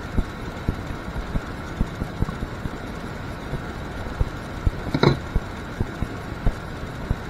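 Small clicks and taps from handling wires, male crimp terminals and a wire crimper, with one sharper click about five seconds in, over a steady background hum.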